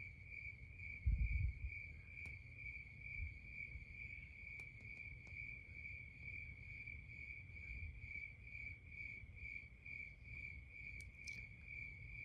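Crickets chirping in a steady, even rhythm of quick repeated pulses. A low thump about a second in, and a few faint clicks.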